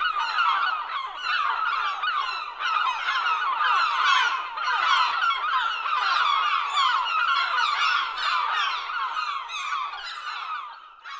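A large flock of birds chirping all at once, a dense mass of overlapping chirps that fades out near the end.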